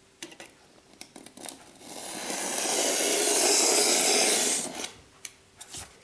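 Polystyrene foam being cut into a brick strip along a homemade guide jig. A few small scrapes and clicks come first, then one long tearing, scraping stroke of about two and a half seconds that swells and then stops.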